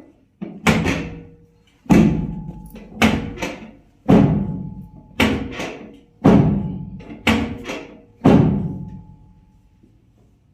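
Deep drum hits in a slow, uneven rhythm, often in pairs, each ringing out for about a second over faint held notes.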